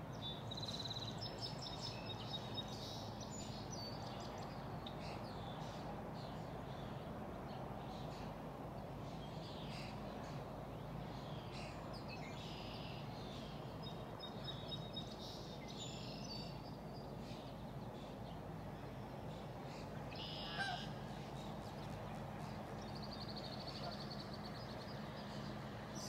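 Birds calling in short, scattered chirps over a steady low background hum, with one louder call about twenty seconds in.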